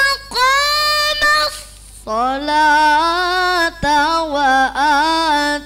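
A boy reciting the Qur'an in the melodic qiraah style into a microphone: long held notes with gliding, wavering ornaments, in several phrases split by short pauses for breath, the longest beginning about two seconds in.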